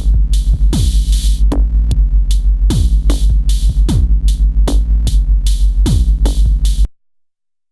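Electronic music with a drum machine beat and deep, sliding bass hits, cutting off suddenly about seven seconds in.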